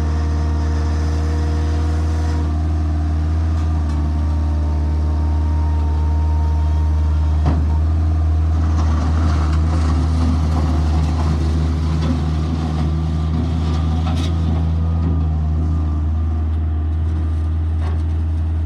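Bobcat 743 skid steer's engine running steadily, with a single knock about seven seconds in and a rougher, busier stretch just after it.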